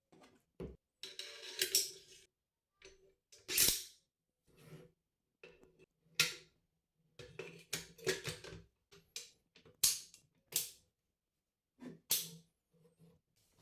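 Metal parts of an AR-15 rifle being handled during cleaning: a series of irregular clicks and knocks with a few short scrapes.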